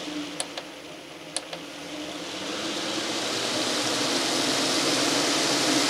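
Fan-Tastic 12-volt roof vent fan running, with four sharp clicks from its control buttons being pressed in the first second and a half. The rush of air dips about a second in, then rises steadily as the fan speeds up.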